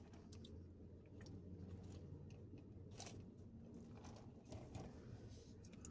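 Faint chewing and mouth sounds of a person eating fast food, with a few short soft clicks, one a little louder about halfway through, over a low steady hum.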